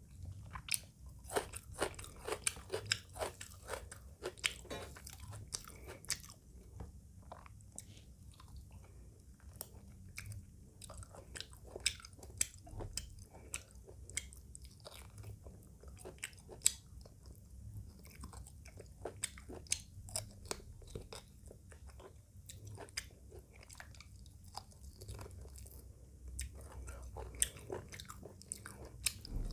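Close-miked chewing of a meal of rice, chicken curry and raw tomato-and-onion salad, with many irregular crunchy bites and wet mouth clicks.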